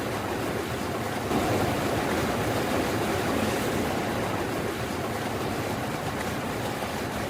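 Steady rushing of floodwater, a little louder from about a second and a half in.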